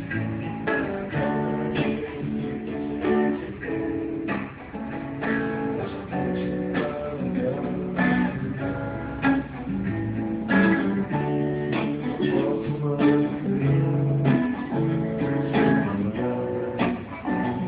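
Acoustic guitar played continuously, strummed chords mixed with picked notes.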